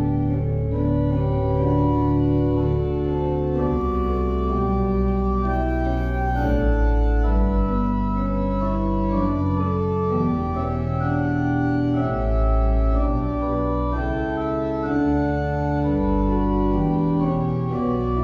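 Organ playing slow, sustained chords over deep bass notes.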